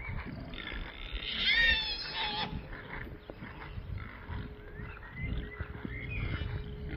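KuneKune pigs and piglets grunting and squealing as they trot along. The loudest sound is a high squeal about a second and a half in, with shorter calls later.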